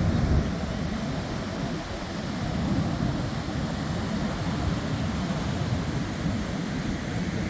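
Wind buffeting the microphone with the steady rush of ocean surf behind it, a rumbling noise that rises and falls without a break.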